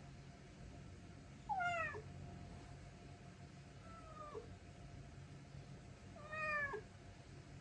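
A pet animal giving three short, high calls that fall in pitch, spaced a couple of seconds apart, over a faint steady hum.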